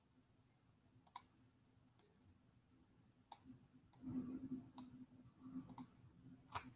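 Near silence with about seven faint, scattered computer mouse clicks, and a faint low murmur about four seconds in.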